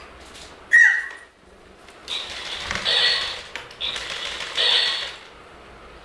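Record-and-repeat talking toy parrot playing back sound in a high-pitched, squeaky voice, twice in a row. A short, sharp squeal with a falling pitch comes about a second in.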